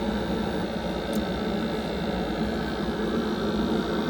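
Glow-worm Flexicom gas condensing boiler firing at maximum rate: the fan and burner run with a steady hum.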